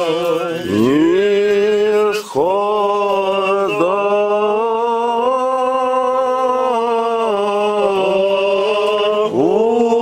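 Old Believer liturgical chant sung by men: slow, melismatic singing on long held notes, each new phrase sliding up into pitch, with short breaks about two seconds in, near four seconds and again near the end.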